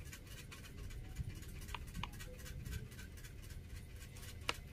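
A cat eating a piece of cassava: a few faint, sparse clicks and soft rustling of chewing and nosing at the food on a blanket.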